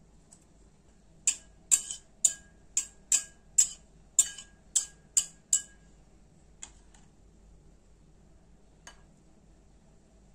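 A metal spoon tapping against the rim of a glass bowl of beaten egg, about ten quick taps at roughly two a second, each with a short ring, as breaded chicken is lifted out of the egg. Two single lighter taps follow near the middle and later.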